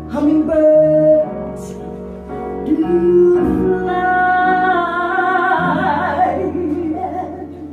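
A woman singing a slow jazz ballad live, backed by electric bass and keyboard, holding one long note with vibrato through the middle.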